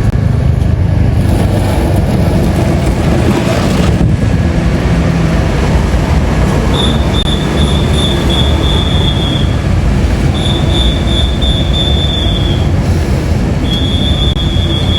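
Loud, steady rumble of a large diesel bus engine and road traffic close by. In the second half, three long high-pitched squealing tones of about two to three seconds each, the last one sagging slightly at its end.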